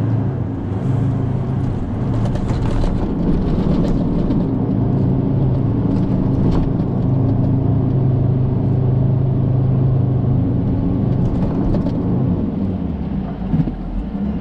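Off-road vehicle engine running steadily under load while driving, with a short knock near the end.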